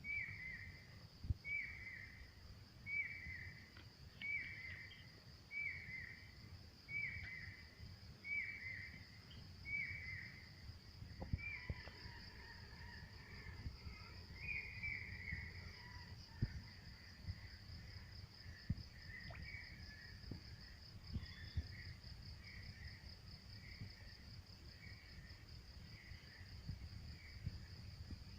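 Insects chirring steadily in a high band, while a bird repeats a short falling call about every second and a half for the first ten seconds or so, then calls more irregularly. Low rumbling noise runs underneath.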